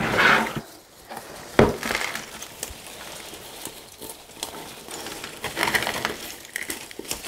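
Handling noises as a plant is worked out of its black plastic nursery pot: irregular rustling of leaves and pot, with one sharp knock about a second and a half in.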